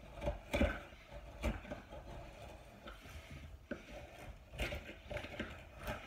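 A hand carving tool cutting and scraping into old table wood in short, irregular strokes with a few sharper clicks, as a damaged chip is carved out near a screw hole.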